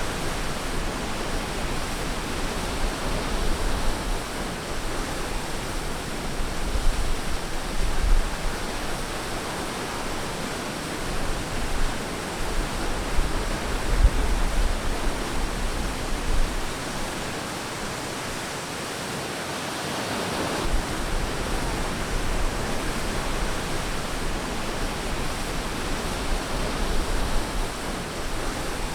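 Ocean surf washing on a beach: a steady rush of waves that eases briefly past the middle, then swells again.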